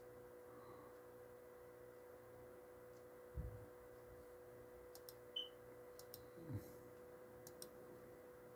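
Near silence: a steady faint hum with a soft thump about a third of the way in and a few faint clicks, some in pairs, over the following few seconds.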